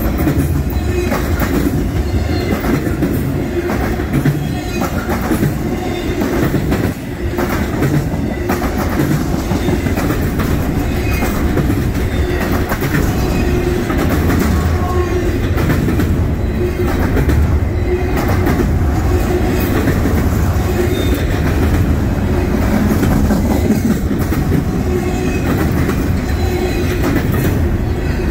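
Intermodal freight cars, trailer-carrying spine cars and double-stack well cars, rolling past at close range: a steady heavy rumble with the wheels clicking rhythmically over the rail joints and a few short high squeals now and then.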